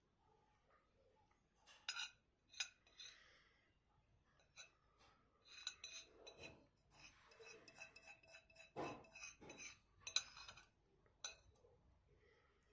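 Cutlery clinking against crockery during a meal: faint, irregular light clinks, the loudest about nine seconds in.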